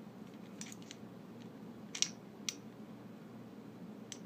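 Faint, scattered light clicks and taps of a Sargent lock cylinder and plug follower being handled as the plug is pushed out, with two sharper clicks about two seconds in.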